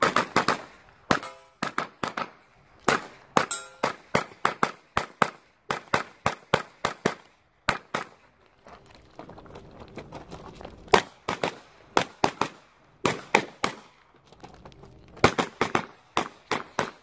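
9mm pistol-caliber carbine fired in rapid pairs and strings of shots, with short breaks between strings and a longer pause about eight seconds in.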